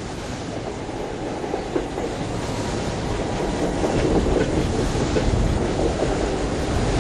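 Train of stainless-steel passenger cars passing close by: a steady rumble and clatter of wheels on rails that grows gradually louder.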